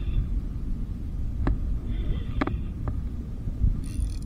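Steady low rumble of wind buffeting the microphone. Over it come a few sharp clicks and a short buzz from the spinning rod and reel as a hooked fish is fought.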